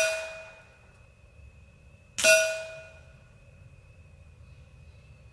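Shots from an FX Monsoon regulated semi-auto .22 PCP air rifle, each a sharp report with a metallic ring. The ring of one shot dies away at the start, and a second shot comes about two seconds in and rings for under a second.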